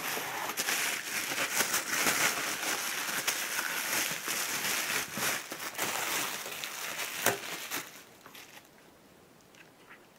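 Plastic bubble wrap crinkling as it is pulled off a radar antenna by hand, dying away about eight seconds in.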